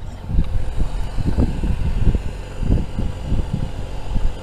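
Steady mechanical hum of a fishing boat's motor, with irregular low rumbling thumps over it.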